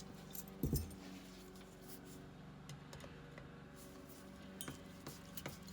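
Light clicks and clinks of small metal carburetor parts and hand tools being handled on a workbench, with one louder knock just under a second in, over a faint steady hum.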